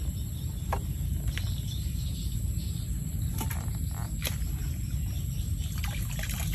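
Scattered faint clicks and light knocks of a bamboo eel trap being handled and opened, over a steady low background noise.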